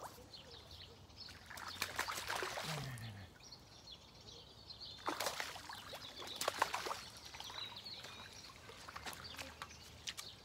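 Water splashing and sloshing in two bursts, with birds chirping faintly.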